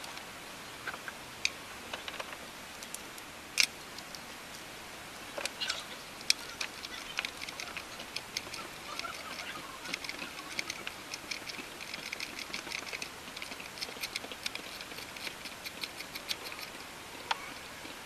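Light clicks and knocks of tools and parts being handled in a car's engine bay. A few sharp clicks come first, the loudest about three and a half seconds in, then a dense run of light, rapid ticking fills most of the rest.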